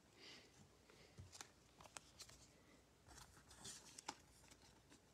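Near silence with faint soft rustles and small clicks of trading cards being handled and shifted between fingers.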